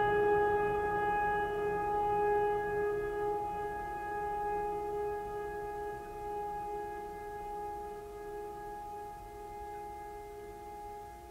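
Ambient background music: one long held tone with ringing overtones, slowly fading away.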